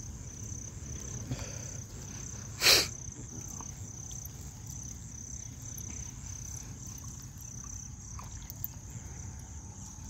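Night insects, crickets, trilling steadily in a high, evenly pulsing band over a low rumble. One short, loud burst of noise comes about two and a half seconds in.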